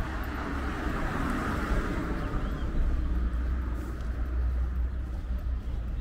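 Street ambience with a car going by, its tyre noise swelling about a second in and easing off, over a steady low rumble; a few faint high chirps.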